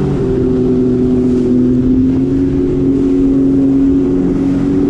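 Sea-Doo jet ski engine held at steady high revs while planing along a shallow channel, with water rushing under the hull. The pitch dips slightly just after the start, then holds steady.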